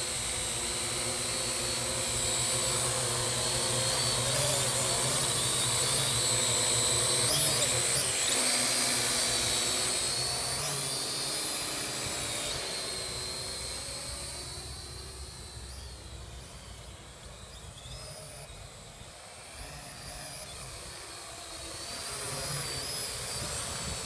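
Parrot AR.Drone 2.0 quadcopter's four electric motors and propellers whining steadily in flight. The sound fades about halfway through and grows louder again near the end.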